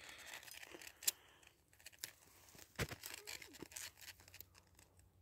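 Faint clicks and scrapes of a steel snare cable and its lock being handled and threaded by hand. There is a sharp click about a second in and a louder one near the middle.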